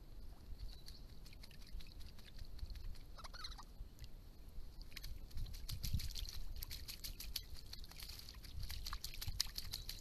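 Eastern rosella bathing in a shallow pond, beating its wings in the water with quick splashing and fluttering that grows thicker from about halfway through. A brief bird chirp sounds about three seconds in.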